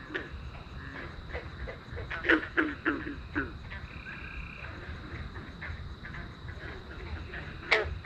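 Frogs calling from the water at night: short, sharp croaks, a run of several about two to three and a half seconds in and one loud croak near the end.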